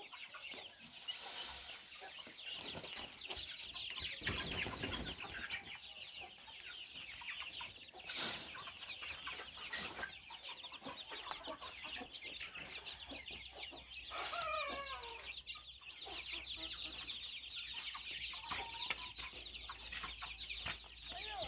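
Backyard chickens clucking as they peck at scattered wheat, with one louder call about fourteen seconds in that falls in pitch.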